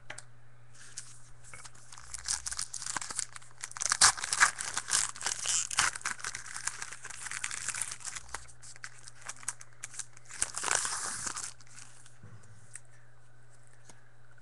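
Foil baseball card pack wrapper being torn open and crumpled, a dense crinkling and crackling that is loudest about four seconds in and dies away near the end, over a steady low electrical hum.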